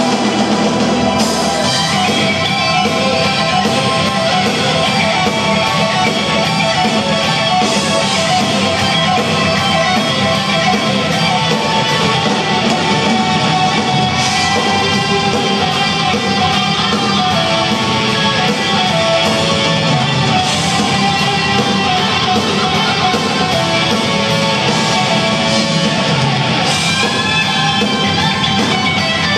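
Live rock band playing: six-string electric guitar over a drum kit, with a steady beat of cymbal hits.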